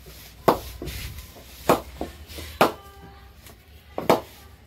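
A cricket ball knocked against the face of a willow cricket bat: four sharp knocks, roughly a second apart.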